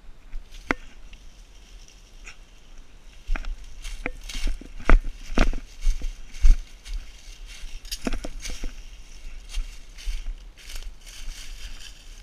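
Footsteps crunching through dry fallen leaves on the forest floor, an uneven run of crackles that are loudest around the middle.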